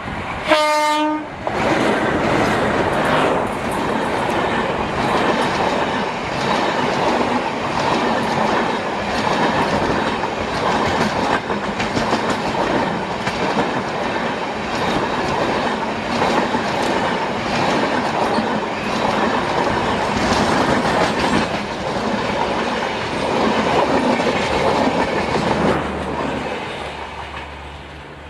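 A short blast on the horn of an Indian Railways WAG-5A electric locomotive about half a second in, then the express train running past close by, its wheels clicking over the rail joints. The noise fades near the end as the last coaches go by.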